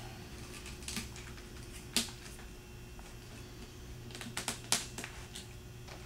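Black flexible air-dolly hoses and their plastic T-connector clicking and knocking as the hoses are pushed together by hand: a few scattered clicks, the sharpest about two seconds in and a quick cluster of them between four and five seconds.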